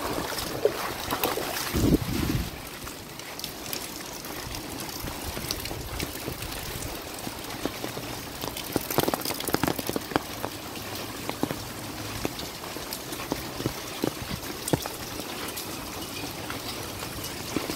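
Rain falling and water running and trickling over a flooded street, as a steady hiss scattered with many sharp drips and splashes. A brief low rumble comes about two seconds in.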